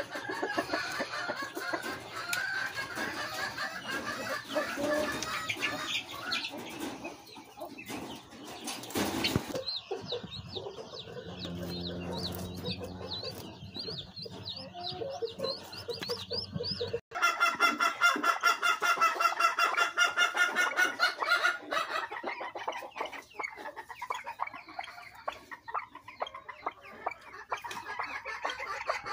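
Pheasants and other fowl calling and clucking in their pens. Midway, pheasant chicks peep rapidly and shrilly over a low steady hum, and from about two-thirds in a loud, dense chorus of bird calls sets in suddenly, then thins out.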